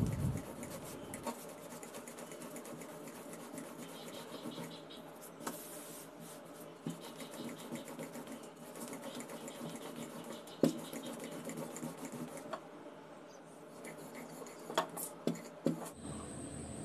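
Wooden rolling pin rolling fuchka dough out thin on a work surface: faint, continuous rolling and rubbing with a few knocks of the pin, the sharpest about ten seconds in.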